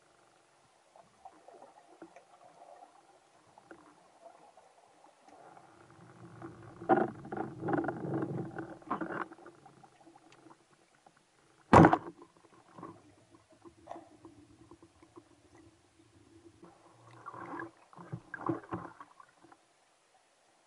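Underwater recording of a rubber-band speargun firing: one sharp crack a little past halfway, the loudest sound, as the shaft is loosed at a garfish. Before and after it, muffled rumbling and knocks from the diver moving through the water, over a faint steady hum.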